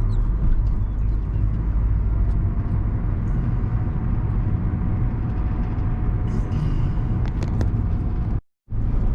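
Car interior road and engine rumble while driving slowly over a bumpy road, with scattered small rattles and clicks. The sound cuts out completely for a moment near the end.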